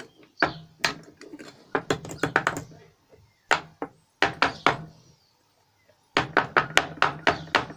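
Repeated knocks and thunks on a metal ingot mould, struck to free a zinc-aluminium ingot stuck fast in it. They come in irregular groups, with a quick run of knocks near the end.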